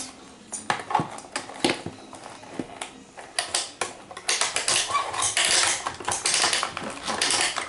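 Small plastic toy pieces being handled and turned: irregular clicking and rattling, busier in the second half.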